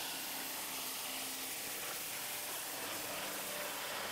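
CNC plasma cutter cutting sheet metal: a steady, even hiss with faint humming tones underneath.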